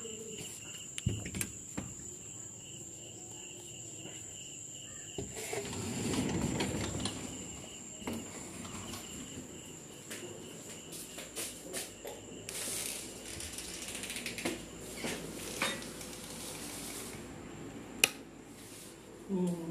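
Footsteps, shuffling and clicks of someone walking while carrying a steel plate, with a louder rustle about a third of the way in and a sharp click near the end. Behind them insects chirp in a steady pulsing rhythm, stopping about two-thirds of the way through.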